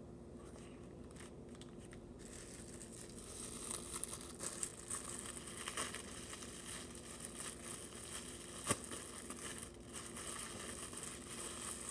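Thin plastic bag crinkling and rustling as slime is worked out of it by hand, starting about two seconds in, with a faint steady hum underneath.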